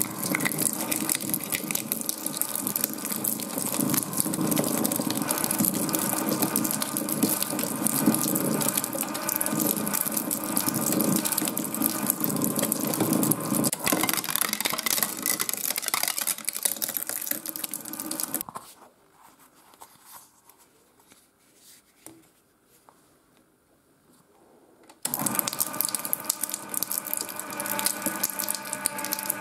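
Twin-shaft shredder's toothed cutter discs crunching and cracking through hard plastic and a CD, continuous for about eighteen seconds. Then near silence for about six seconds, after which the shredder runs again with a steady mechanical whine as a sheet of dark rubber-like material is fed in.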